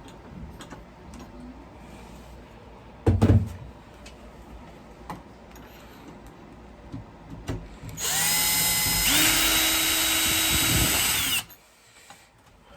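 Power drill running while fitting the door knob: the motor winds up about eight seconds in, steps up in pitch about a second later, and stops after about three and a half seconds. Before it, a single loud knock about three seconds in and quiet handling clicks.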